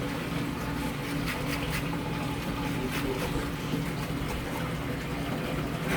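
A steady low machine hum, of the water-pump kind, runs throughout. Over it come a few faint short scraping ticks of a knife as a large olive flounder is filleted.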